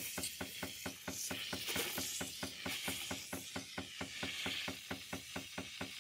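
Steam wand of a KitchenAid Artisan espresso machine frothing milk in a stainless pitcher, its tip held just under the surface to stretch the milk. A steady hiss runs under a fast, even pulsing of about six pulses a second.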